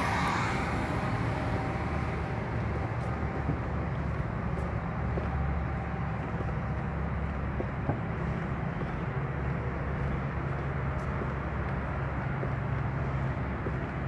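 Steady low rumble with a hiss above it, unchanging throughout, with a few faint ticks.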